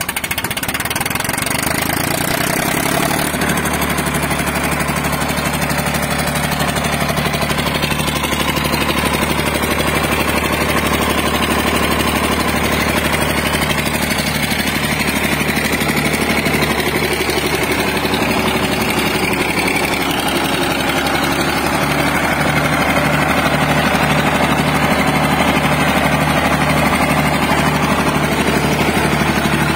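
Diesel engine of an open-frame generator running steadily, just after a cold start. It picks up and settles over the first few seconds, then holds an even speed.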